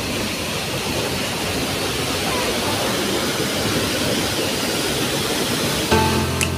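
Waterfall pouring down a rock face into a pool: a steady rush of falling water. Background music comes in near the end.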